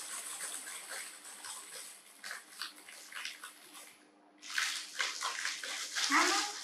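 Dry crunchy noodles crackling and crunching as they are broken apart by hand, over a steady hiss. The crackling drops away briefly a little after four seconds and comes back louder, and a short voice-like sound rises and falls near the end.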